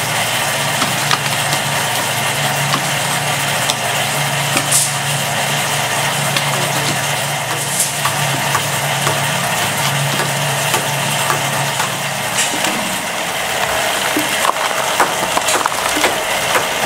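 Concrete pan mixer running, its paddles churning a gritty concrete mix. A steady grinding noise sits over a low motor hum, with scattered clicks and knocks from the aggregate. The hum stops about three quarters of the way through.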